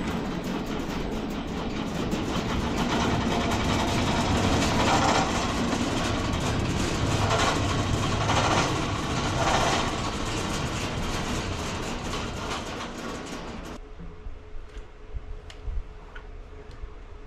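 Home-built bandsaw mill sawing through an elm log, a loud steady cutting noise. About fourteen seconds in it drops off sharply to a much quieter running hum with a few light clicks.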